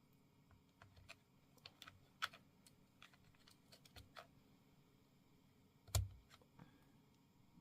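Typing on a Keychron K8 Pro mechanical keyboard with PBT keycaps: scattered, irregular key clicks, with one heavier, deeper thud about six seconds in.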